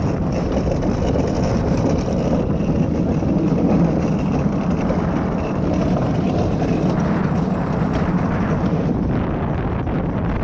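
Steady rumbling and rushing of a luge cart rolling down a paved track, with wind on the microphone.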